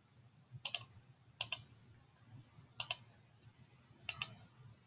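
Four faint, quick double clicks of computer buttons, each a press-and-release pair, spaced irregularly.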